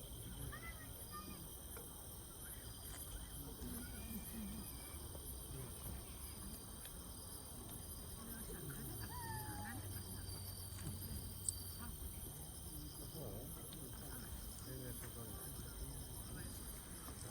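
Insects chirring steadily, with a faint murmur of distant voices.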